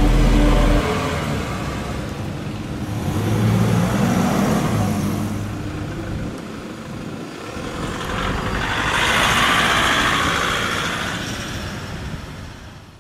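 Toyota Hiace vans and a sedan pulling away and driving past one after another, engines accelerating with tyre noise. One pass swells around four seconds in with a rising engine note, a louder one around nine to ten seconds, and the sound fades out near the end.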